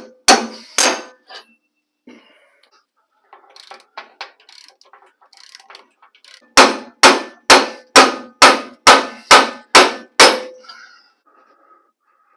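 Hammer blows ringing on the old steel steering linkage of a 1985 GMC Sierra, knocking a tapered tie-rod stud loose: a few strikes at the start, quieter clicking of hand tools, then a steady run of nine sharp, ringing blows about two a second.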